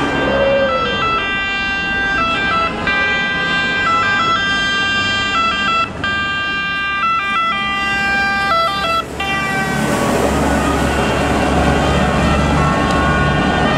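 Two-tone siren of an Astra HD7 84.42 fire brigade crane truck, switching back and forth between two pitches, then sliding down in pitch about nine seconds in as the truck passes. After that the siren drops back and the heavy truck's diesel engine and tyres are loudest.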